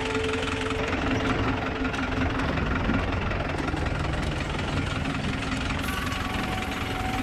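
Mahindra jeep's engine running as the jeep crawls over a rocky dirt track: a steady rumble with small knocks and rattles from the jolting.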